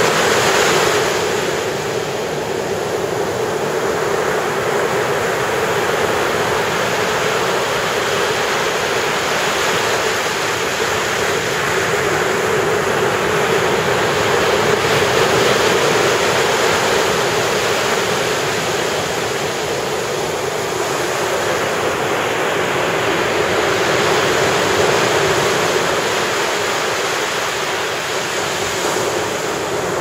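Ocean surf breaking and washing up a sandy beach: a steady rush of water that swells and eases as each wave comes in.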